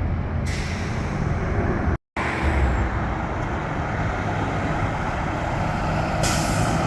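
Steady road traffic noise from cars and trucks passing, broken by a short gap about two seconds in.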